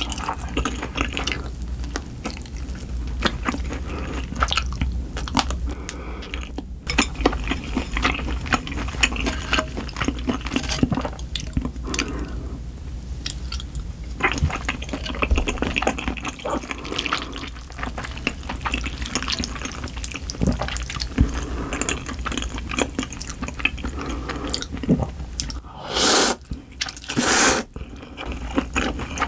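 Close-up eating sounds: chewing with many small mouth clicks, then two loud slurps of cold buckwheat noodles near the end.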